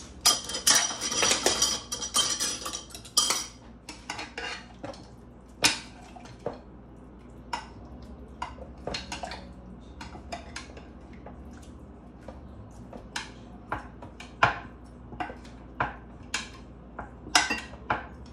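Metal tongs clinking and scraping against a glass baking dish while marinated meat is turned: a dense clatter for the first few seconds, then scattered single clicks.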